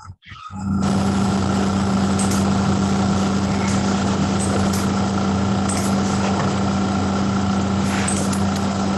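A loud, steady machine-like hum over a hiss, starting abruptly just under a second in and holding level throughout.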